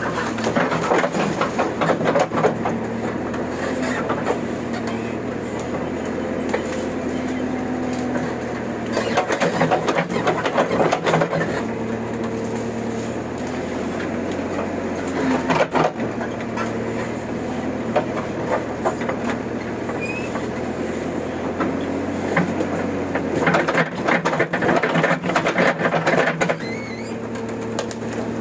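JCB 3DX backhoe loader's diesel engine running steadily under load, with several spells of cracking and snapping as thorn-tree wood and roots break.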